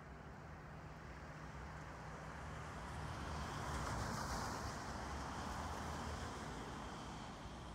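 A vehicle passing by: a rushing noise that swells to its loudest about halfway through and then fades, over a steady low hum.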